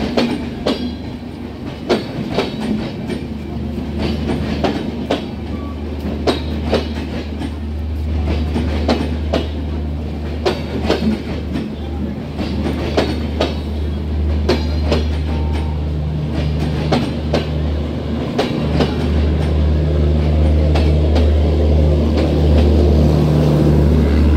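Passenger coaches rolling slowly past on departure, their wheels clacking over rail joints in irregular clicks over a steady low rumble. Near the end a low drone from the power car's diesel generator grows louder as it draws level.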